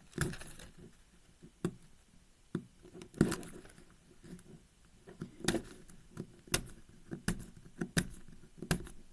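Plastic 5x5 puzzle cube handled while tape is picked off it: irregular sharp clicks and taps, the loudest about three seconds in.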